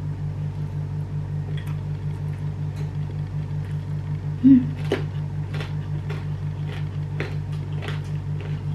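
Hand-fed eating: faint scattered chewing and mouth clicks over a steady, pulsing low hum, with a brief low murmur about four and a half seconds in.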